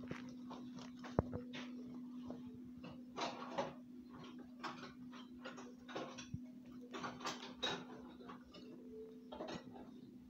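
Kitchen handling noises: scattered small taps, clicks and rustles of utensils and dough being handled on a tiled counter, with one sharp knock about a second in, over a steady low hum.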